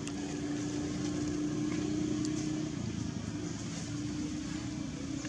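A steady motor hum with a held low tone over a low rumble, which drops out briefly about three seconds in.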